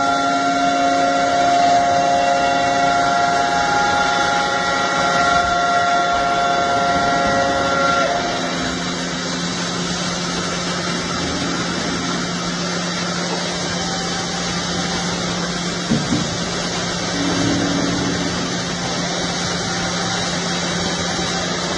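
Heavy machinery running: a steady whine of several tones that stops about eight seconds in, leaving a lower steady hum with a short knock near the middle.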